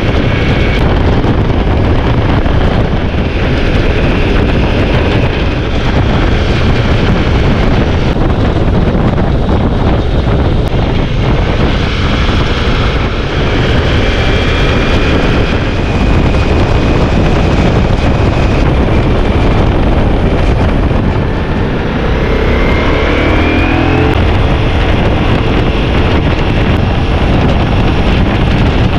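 Ducati Multistrada V4S motorcycle running at speed under heavy wind noise on the microphone, with the engine note rising briefly about three-quarters of the way through.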